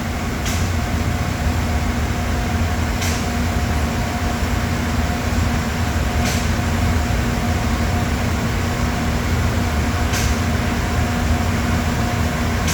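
Air compressor for a CNC router running with a steady humming drone, building air pressure after the air supply has been switched on. Short puffs of hissing air come every few seconds over it.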